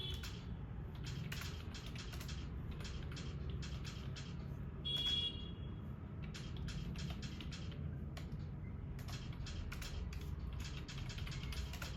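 Computer keyboard being typed on at a test pace, with irregular key clicks several a second over a steady low hum. A brief creak comes about five seconds in.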